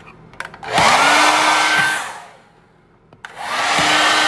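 Handheld hair dryer starting twice, its motor whine rising as it spins up. The first run cuts out after about a second, and it starts again near the end: a poor electrical contact that keeps it from staying on.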